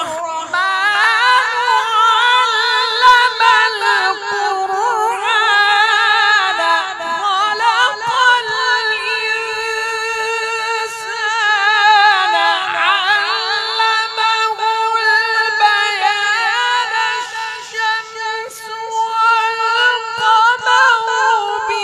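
A man reciting the Quran in a high, melodic tajweed style through a microphone. He holds long, drawn-out phrases with rapid trilling ornaments, and the line dips briefly in pitch about halfway through.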